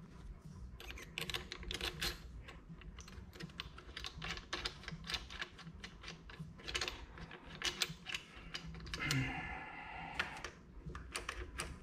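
Irregular small clicks and taps of plastic and metal parts as a carburetor and aluminium intake adapter are handled and pushed into place on a gas leaf blower. About nine seconds in there is a longer scraping sound, parts rubbing as they are seated.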